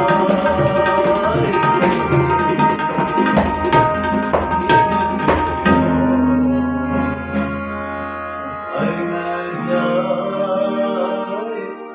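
Tabla played in a fast, dense run of strokes that stops a little before halfway, over acoustic guitar and a man singing; after the drumming ends, guitar and voice carry on alone.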